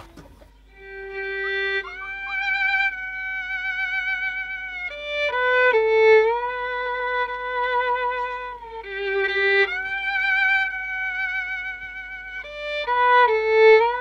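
Solo violin playing a slow melody of long held notes with vibrato. It begins just under a second in.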